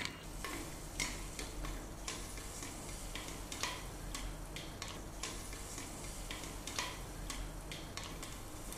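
Popcorn kernels popping in hot oil in a covered pan: irregular sharp pops, a few at a time, over a steady sizzle.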